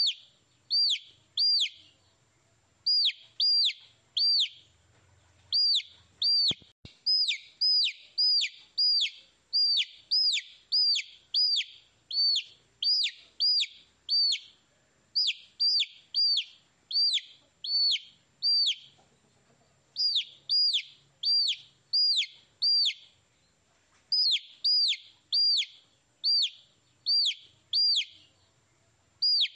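Baby chicks peeping: short, high chirps, each falling in pitch, coming in quick runs of two or three with brief pauses between runs.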